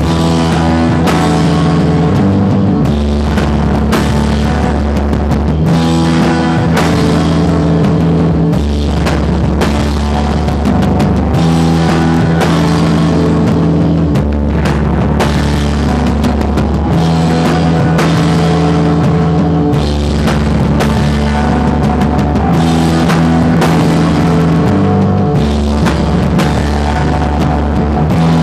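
Loud rock music with a drum kit keeping a steady beat under a bass line that moves between held notes.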